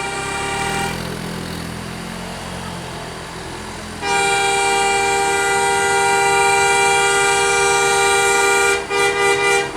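A bus's multi-tone air horn sounding a chord that stops about a second in, then a long held chord from about four seconds to nearly nine, ending in three short toots. Between the horn blasts a vehicle engine runs low.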